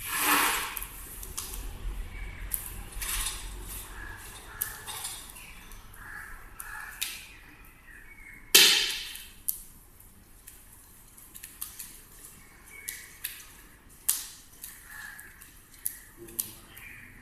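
Homa fire crackling and popping in a brick fire pit, with a loud rush of sizzling flame at the start as an offering is poured in. One sharp, loud hit comes about halfway through.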